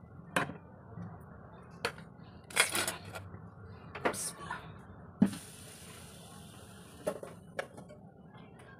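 Cookware clanking on a gas stove: a steel pot lid lifted off and pans knocked and set down on the burner grates, about seven sharp knocks spread through. A brief hiss runs for about a second and a half about two-thirds of the way through.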